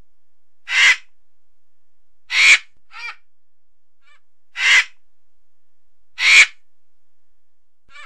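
Hoarse, crow-like bird calls, given as a vulture's call: four loud caws spaced about one and a half to two seconds apart, with a shorter, fainter one just after the second, over a faint steady hiss.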